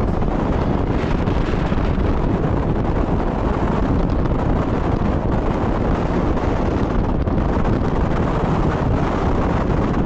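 Wind buffeting the microphone of a moving vehicle, a loud steady rush with the rumble of the vehicle and road underneath.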